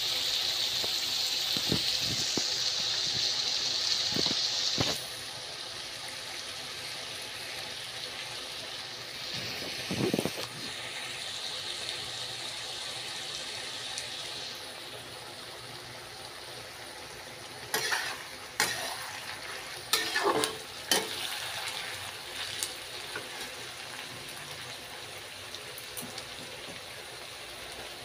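Sliced onions frying in oil in a kadai, a steady sizzle that drops to a quieter level about five seconds in. Later comes a cluster of sharp clinks from a metal spatula against the pan.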